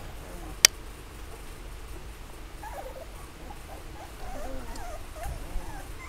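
Two-week-old Bullmastiff puppies whimpering and squeaking in short, wavering cries from about two and a half seconds in. A single sharp click under a second in is the loudest sound.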